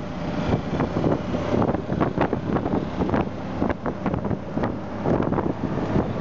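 Auto-rickshaw riding along the road, heard from inside the open cab: a steady rush of road and engine noise with frequent rattles and knocks from the body, and wind across the microphone.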